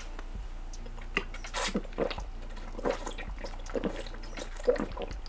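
A person drinking water from a plastic bottle: a series of gulps, about one a second.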